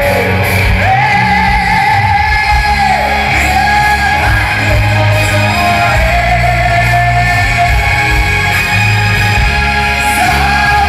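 Live rock band playing loud, with a male singer holding long sung notes over heavy bass and drums, heard from the crowd in a large hall.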